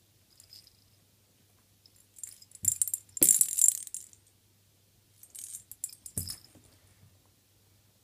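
Metal ID tag on a cat's collar jingling as the cat rolls and paws about on carpet, in two bursts about two and five seconds in, with a few dull thumps among them.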